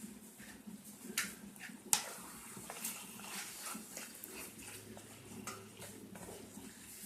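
Chicken cooking in a pan, with a light sizzling haze and scattered clinks of a metal utensil against the pan. The loudest are two sharp knocks about one and two seconds in.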